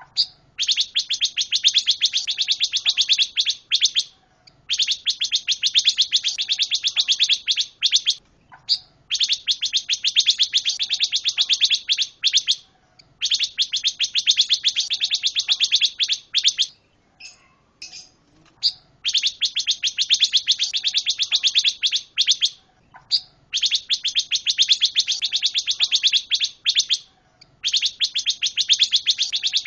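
Songbird known to Indonesian bird keepers as pancawarna, singing in long runs of rapid, high-pitched chattering trills. Each run lasts about three and a half seconds and is followed by a brief pause; about seven runs are heard, with a longer pause holding a few faint notes near the middle.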